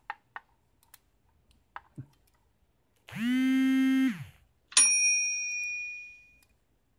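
A few light clicks as a shim is worked into a Euro cylinder lock. Then a steady pitched tone about a second long, sliding in and out, followed by a single struck bell-like ding that rings out and fades.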